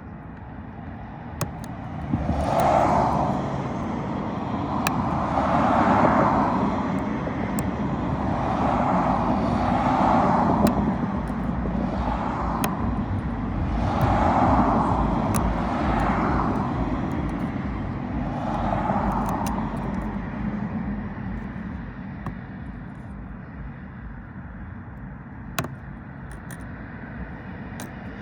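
Outdoor background noise swelling and fading about seven times, with scattered small sharp clicks from a Lishi pick tool working a car door lock.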